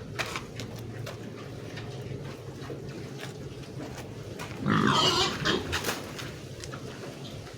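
Pigs grunting and feeding, with scattered clicks and one louder pig call about five seconds in.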